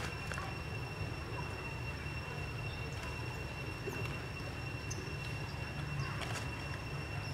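Outdoor background noise: a steady low rumble with a thin, constant high-pitched whine over it and a few faint clicks. No clear animal call stands out.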